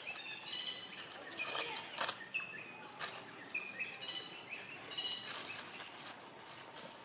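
Baby long-tailed macaques giving short, high-pitched squeals, repeated every second or so as they play-wrestle, with a couple of sharp rustles or knocks about two seconds in.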